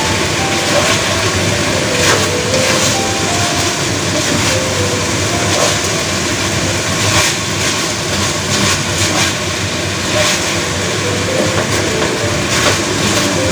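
Eggplant and minced meat sizzling in a hot wok, with a wooden spatula scraping and knocking against the pan as the food is stir-fried.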